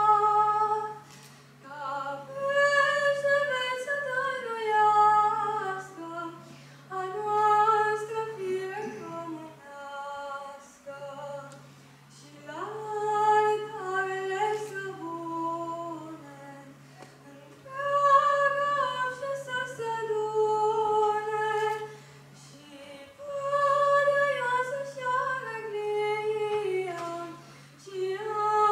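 A boy singing solo into a microphone in a high, unbroken voice: phrases of a Romanian patriotic song, separated by short breaths. A low steady hum sits underneath and drops out briefly between some phrases.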